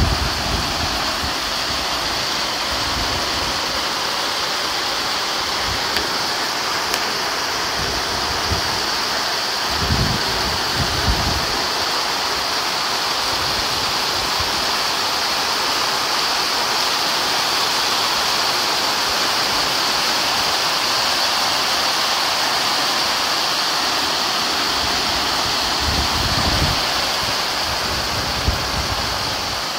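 Heavy rain pouring down steadily, a dense even hiss. Low rumbles of wind buffet the microphone briefly about ten seconds in and again near the end.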